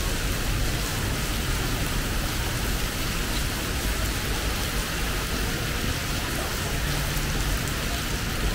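Heavy rain pouring down onto the road and pavement, a steady hiss with a low rumble underneath.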